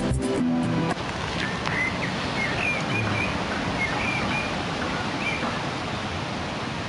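Music stops about a second in, leaving a steady outdoor hiss of wind over the microphone with a few short bird chirps in the middle.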